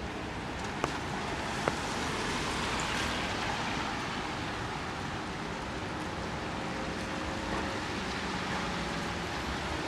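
Steady hiss of rain on a wet city street, swelling for a couple of seconds a little way in, with two sharp ticks in the first two seconds.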